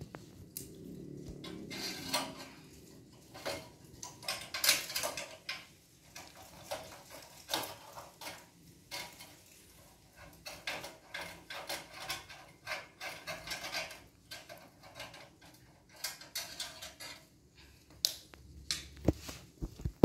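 Screwdriver clinking and scraping against the metal burner of a gas water heater while a burner gas nozzle is unscrewed: a long run of irregular metallic clicks and rattles.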